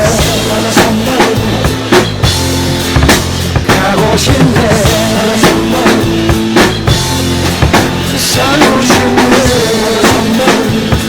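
Drum kit played along with the backing track of a 1980s Korean pop song in an instrumental passage without vocals: a steady beat of bass drum and snare strokes under a melodic lead line.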